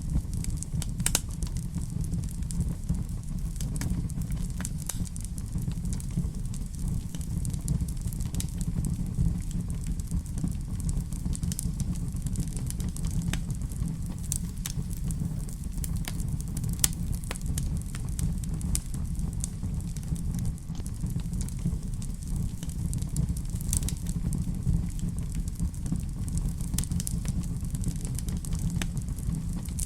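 Wood fire burning in a fireplace: a steady low rumble with sharp crackles and pops at irregular moments.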